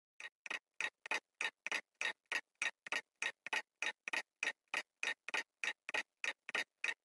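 Twin-bell mechanical alarm clock ticking steadily, about three and a half ticks a second.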